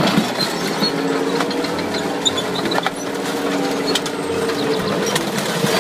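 A tank's engine droning steadily as its tracks climb onto and crush a minivan, with many sharp cracks and crunches of the van's body giving way.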